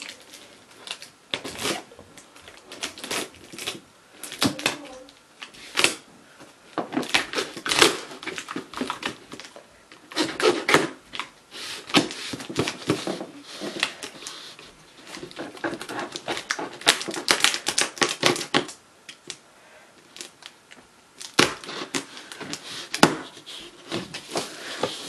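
Packing tape being torn and peeled by hand off a cardboard box: runs of irregular crackling rips with short pauses between them.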